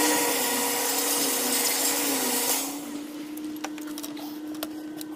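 Vacuum cleaner, most likely a shop vac, running with a steady motor hum under a loud rush of air through the hose. The hum's pitch sags and recovers for a couple of seconds. About two and a half seconds in the air rush drops away, leaving a quieter hum with scattered clicks of debris or contact.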